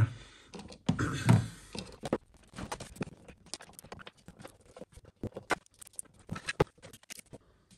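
Small screwdriver working at a metal battery-pack casing to open it: irregular clicks, taps and scrapes of metal on metal, a little louder about a second in.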